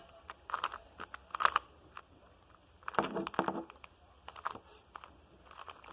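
Plastic Rubik's cube being twisted: short bursts of clicking and scraping as layers are turned, about six bursts with brief pauses between them.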